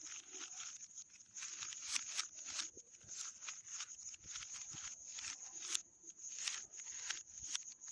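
Plastic Rubik's cube being turned quickly, its layers clicking and scraping in a fast, irregular run of short clacks.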